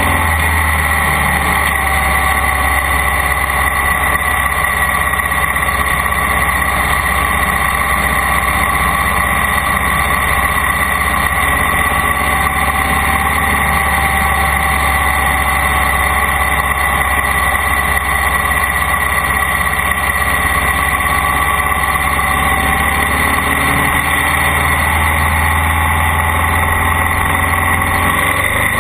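A vehicle's engine running steadily, with a constant low hum and a steady high whine over it, unchanging throughout.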